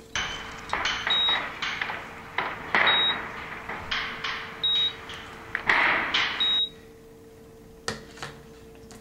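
A string of mismatched comedy sound effects standing in for everyday sounds: a run of noisy clattering bursts with four short, high beeps about every second and three quarters, stopping about six and a half seconds in.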